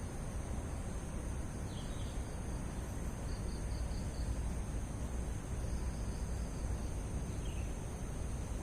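Outdoor ambience of insects: a steady high-pitched drone with a short run of faint chirps about three seconds in and a couple of single faint chirps, over a constant low rumble.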